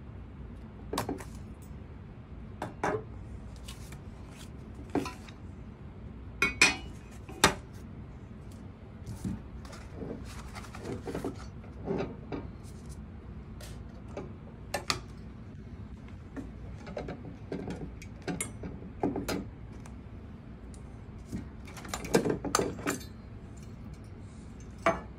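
Painted sheet-metal mounting plates and brackets being handled and set down on a table: irregular clinks and clatters, the sharpest two about a quarter of the way in and a quick cluster near the end.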